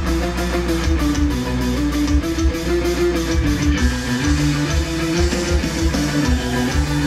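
Loud live rock-style music with a guitar-led passage over bass and a steady drum beat.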